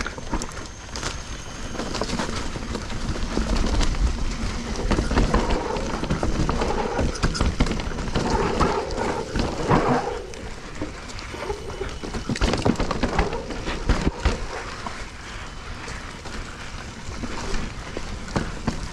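Specialized Stumpjumper Evo mountain bike ridden down a dirt trail: tyres on the ground and the bike rattling over rough terrain in a dense, irregular run of clicks and knocks. A heavy wind rumble on the microphone sits underneath, loudest in the middle stretch.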